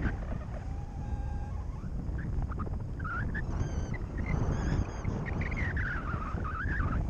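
Wind from the paraglider's forward airspeed buffeting the microphone: a steady low rushing. Faint wavering tones rise and fall over it now and then.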